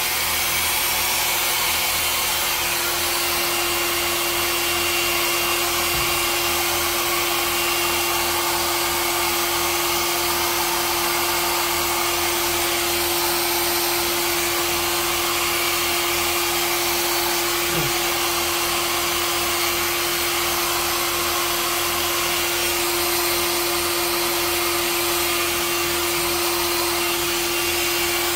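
Handheld hair dryer blowing steadily: an even rush of air over a constant motor hum.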